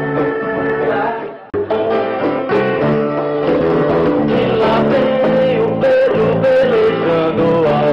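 Live music: a man singing while strumming an acoustic guitar. The sound drops out abruptly for a moment about a second and a half in, then the guitar and voice start again.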